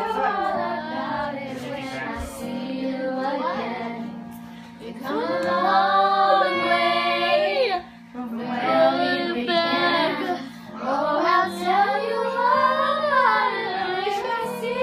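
A young girl singing along to a karaoke backing track, her sung melody over the music's steady low notes, with a short break about eight seconds in.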